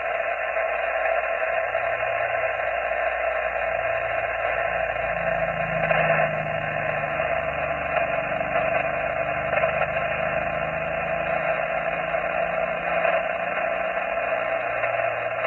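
Amateur radio transceiver's speaker hissing with steady band static on an open frequency while listening for a reply to a CQ call; no station is coming through.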